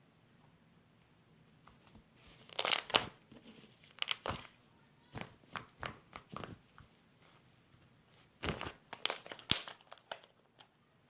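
Baby blue fluffy, glossy, somewhat sticky slime being squeezed and worked in the hands, making irregular bursts of wet crackling and popping that start about two seconds in.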